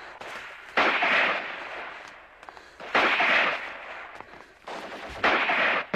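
Gunfire in a battle: three loud bursts about two seconds apart, each dying away over a second or so.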